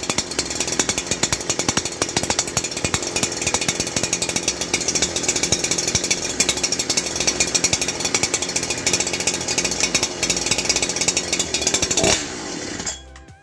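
TSXD 65 cc two-stroke chainsaw, a Chinese clone of the Husqvarna 365 Special, running steadily, then shut off about twelve seconds in, its note falling away as the engine winds down.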